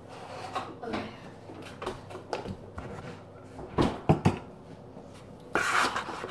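Handling things in a kitchen refrigerator: scattered small clicks, then a few sharp knocks and clunks about four seconds in. Near the end a plastic yogurt bag crinkles loudly, right at the microphone.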